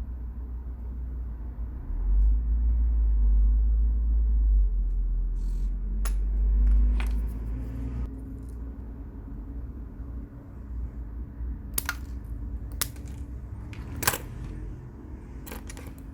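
Small metal parts of a rebuildable dripping atomizer being handled by hand. A low rumble of handling runs for several seconds, then come several sharp metallic clicks, the loudest about fourteen seconds in.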